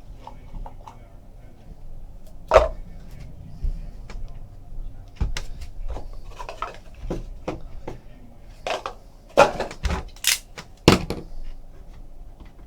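Scattered knocks, clicks and rustling as a trading-card box and its packaging are handled and opened, with the loudest knocks about two and a half seconds in and again around nine to eleven seconds in.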